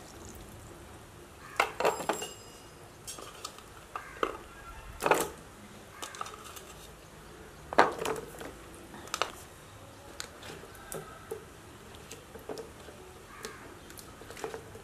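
Colocasia (taro) corms being washed by hand in a bowl of water: irregular knocks and clatters of the corms against the bowl, with water splashing.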